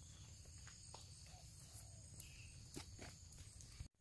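Faint, steady chirring of crickets or other insects, with a few soft footsteps on a dirt path; the sound cuts off abruptly just before the end.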